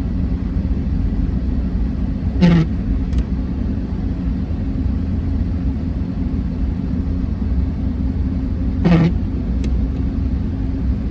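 Steady low rumble of a car on the move, heard from inside the cabin: engine and tyre noise. Two short knocks, each with a quick falling squeak, come a couple of seconds in and again near the end.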